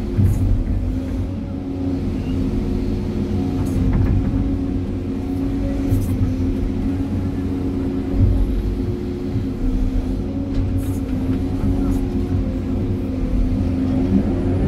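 Excavator's diesel engine running steadily under work, heard from inside the operator's cab, with a few brief clicks.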